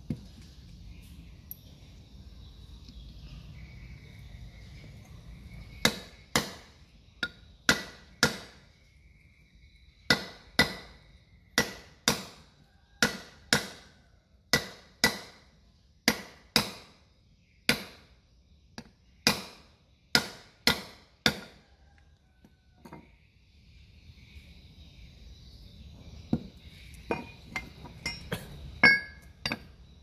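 Hammer striking metal about twenty times, mostly in pairs about half a second apart, each blow ringing briefly. A few lighter taps follow near the end.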